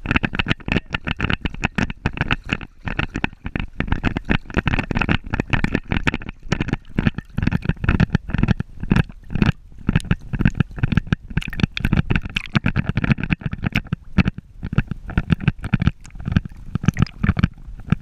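Water sloshing and splashing around a Border Terrier as it swims, in rapid irregular slaps close to the microphone, which rides at the waterline.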